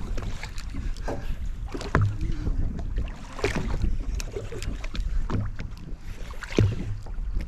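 Steady low rumble of wind and water around a boat at sea, with three sharp knocks against the boat.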